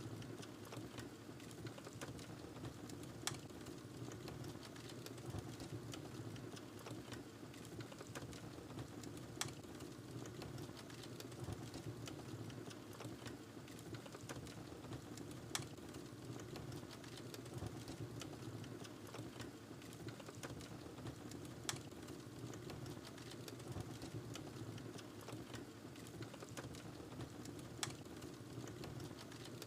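Wood fire crackling in a fireplace: a steady low hiss of burning with many small crackles, and a sharper pop about every six seconds.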